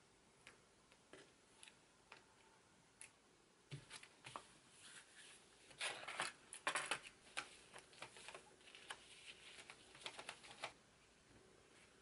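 Small metal turn clips on the back of a picture frame being flipped and the hardboard backing board handled: scattered light clicks and scrapes, busiest about halfway through and again near the end.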